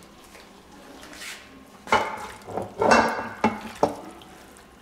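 Browned beef cubes scraped from a skillet into a slow cooker's crock with a silicone spatula: a few knocks and scrapes of pan and spatula as the meat slides and drops in. They start about two seconds in and are loudest around the three-second mark.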